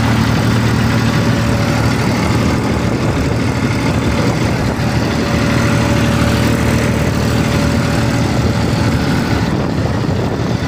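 Tractor engine running steadily while under way, a loud, even low drone heard from on board.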